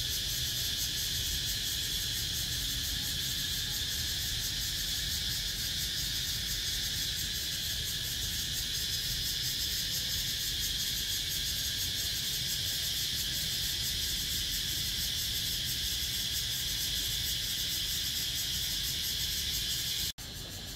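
Cicadas calling in a steady, high-pitched chorus with a fine rapid pulse, over a low background rumble. The sound drops out for an instant near the end and comes back slightly quieter.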